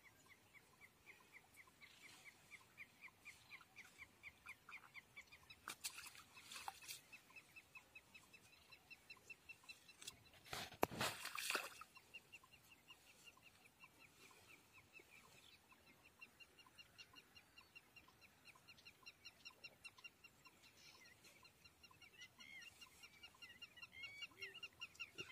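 Faint, steady chirping from an unseen animal, about five short high chirps a second and never pausing. A few louder rustles and knocks break in, the loudest about eleven seconds in.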